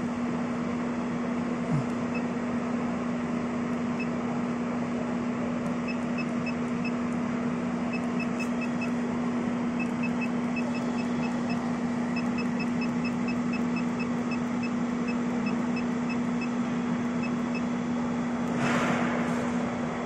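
Steady machine hum with one strong low tone, and short high beeps from the CNC controller's keypad coming in quick runs as keys are pressed to scroll through the file list. A brief rush of noise near the end.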